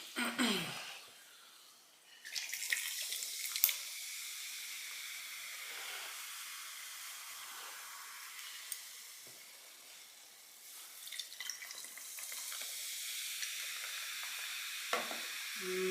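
A Sprite being opened, with a couple of sharp clicks, then the steady high fizzing hiss of the carbonated soda, which dies down about ten seconds in and picks up again.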